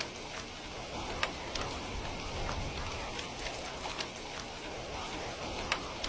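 Heavy rain falling steadily, a constant hiss with scattered sharp drop ticks, two of them louder, about a second in and near the end.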